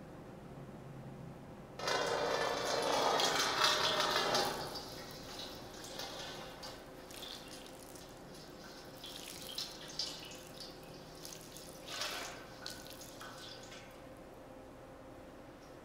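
Bare feet stepping into a shallow stainless-steel basin of water: a loud splash about two seconds in, then lighter sloshing and dripping as the feet move in the water, with another small splash near twelve seconds.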